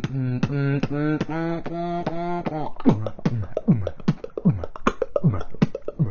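Human beatboxing. For the first couple of seconds a hummed bass line is held on a few steady notes, with sharp clicking snares cutting through it. Then it switches to a quick, even rhythm of short, falling bass kicks and clicks, about two or three a second.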